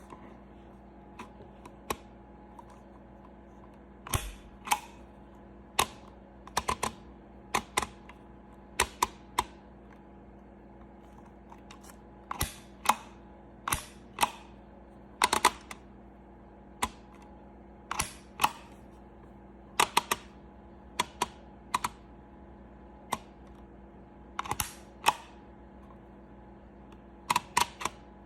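Handheld DYMO embossing label maker being worked: sharp plastic clicks at irregular intervals, often in quick pairs, as the handle is squeezed to emboss a character and let go.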